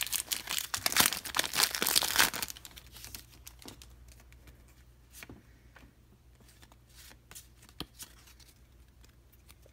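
Foil wrapper of a small Pokémon trading card pack being torn open and crinkled for about the first two and a half seconds. After that come faint scattered taps and rustles as the cards are handled.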